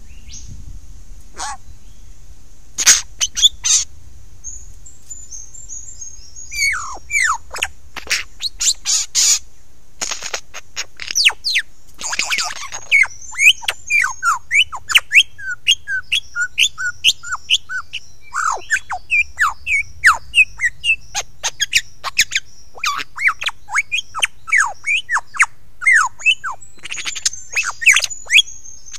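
Lyrebird singing at close range: a fast, loud run of sharp downward-sliding notes mixed with clicks, starting a few seconds in and coming several a second, over a thin high trill.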